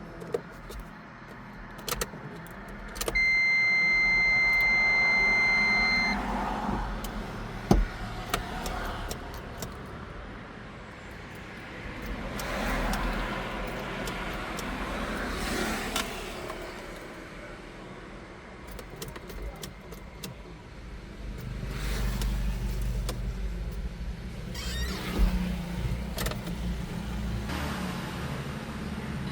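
A steady, high electronic beep lasting about three seconds, among scattered clicks and handling noises. A low rumble comes in during the second half.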